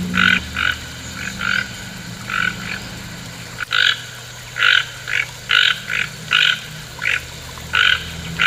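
A frog croaking: short rasping calls, often in pairs, repeated every second or so over a steady low hum.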